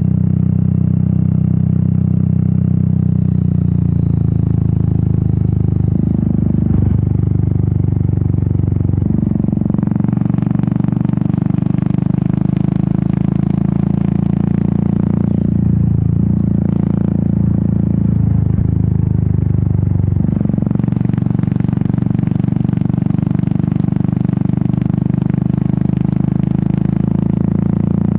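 Royal Enfield Meteor 350's single-cylinder engine and exhaust running under way. The engine note drops and rises several times as the throttle changes, with wind rush growing from about a third of the way in.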